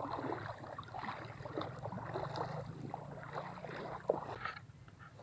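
Shallow creek water trickling and splashing over rocks, a busy irregular rush that fades near the end.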